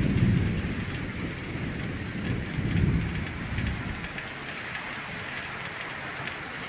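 Steady hiss of rain during a storm, with low rolling rumbles of thunder that are loudest at the start and swell again about three seconds in before easing off.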